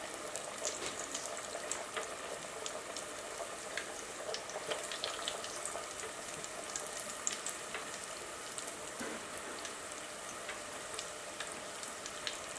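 Flour-dusted chicken wings deep-frying in a pot of hot oil: a steady sizzle dotted with many small pops and crackles.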